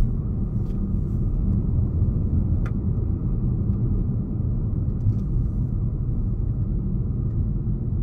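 Steady low rumble of a moving car's engine and tyres on a paved road, heard from inside the cabin, with a few faint ticks.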